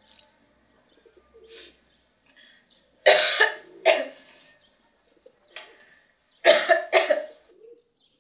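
A woman coughing in two fits of two or three coughs each, one about three seconds in and another about six and a half seconds in, with fainter coughs between.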